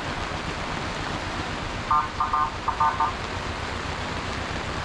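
Steady hiss of rain and wind. About two seconds in, a quick run of about five short, high beeps cuts through it.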